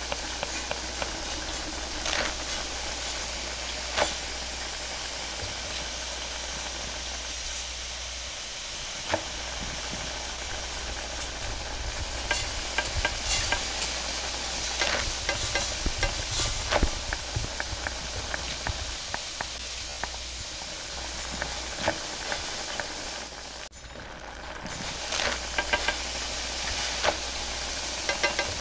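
Rotis sizzling on a flat steel griddle, a steady hiss, with scattered clicks of kitchen work that grow busier in the second half. The sound dips briefly about three-quarters of the way through.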